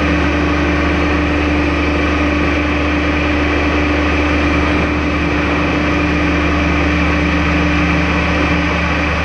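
An old dock gangway machine running steadily with a constant hum and a few steady tones.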